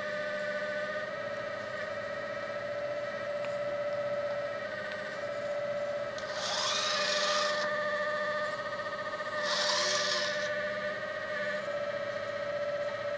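Hydraulic pump of a LESU 945 Liebherr RC excavator whining steadily while the boom, arm and bucket are worked, its pitch sagging briefly now and then. There are two short bursts of hiss, about six and ten seconds in.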